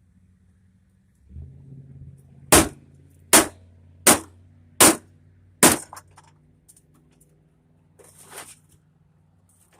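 Five sharp hammer blows on an old CRT television being broken apart for scrap, coming about one every 0.8 s in the first half, over a faint low hum.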